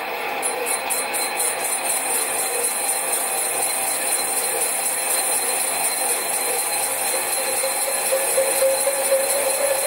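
Sieg SC4 lathe running steadily at 240 RPM with the cross slide under power feed, taking a 5 thou facing cut on a cast-iron flywheel: an even machine whine with gear noise, one tone growing louder near the end.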